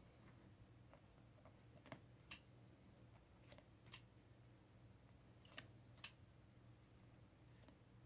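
Faint flicks and clicks of baseball trading cards being slid off a stack and laid onto a pile on a wooden desk. The clicks come in three pairs, each pair about a second and a half to two seconds apart, over a low steady room hum.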